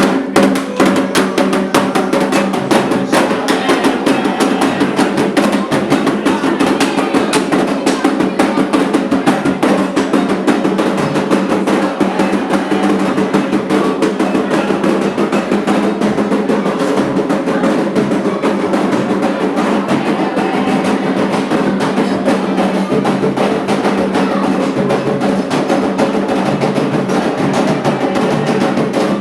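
Candomblé atabaque drums playing a fast, continuous ritual rhythm with dense, rapid strokes.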